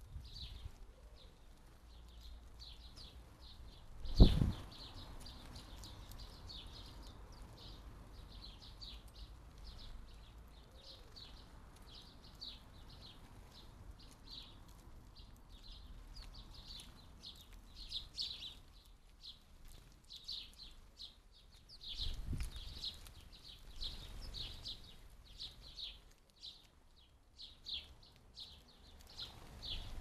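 A flock of house sparrows chirping busily and continuously, many short chirps overlapping. About four seconds in comes one loud thump, and about two-thirds of the way through a lower rumbling knock.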